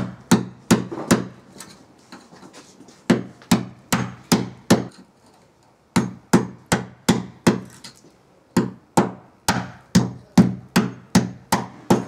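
Hammer blows on a masonry wall, knocking out the plug inside a ring of drilled holes to open a hole for a pipe. Sharp strikes in runs of four to ten at about two to three a second, with short pauses between runs, the longest run near the end.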